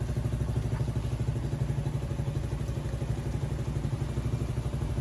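An engine idling steadily, with a fast, even pulse in its low hum.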